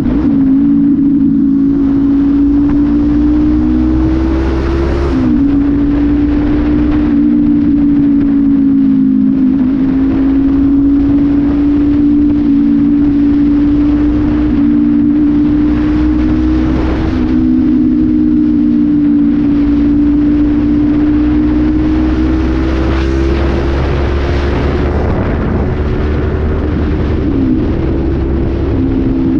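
Honda CB500F's parallel-twin engine running at a steady highway cruise through an aftermarket slip-on exhaust, with no air filter. The engine note holds nearly constant, dipping slightly about five seconds in and again near the end, over steady wind and road noise.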